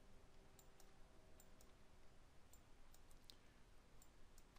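Faint, scattered clicks of a computer mouse and keyboard, about a dozen irregular taps over low room noise, as text fields are selected and cleared.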